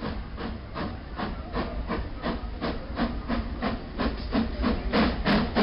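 Small steam locomotive working past at low speed, its exhaust chuffing in an even rhythm of about three beats a second over a steady low rumble, growing louder as it approaches.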